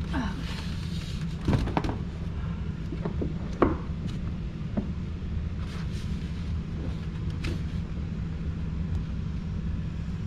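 A steady low hum, with a few sharp knocks and clicks as the parts of a plastic egg incubator are handled and turned over, the loudest about a second and a half and three and a half seconds in.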